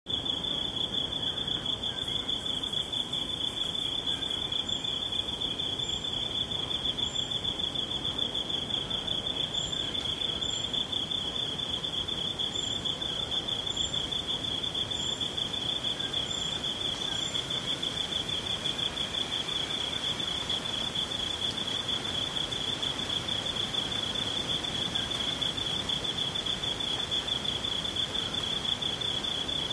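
Rainforest insects, crickets among them, trilling. One loud, continuous high trill with a fine rapid pulse, plus a string of about ten short, higher chirps over the first half.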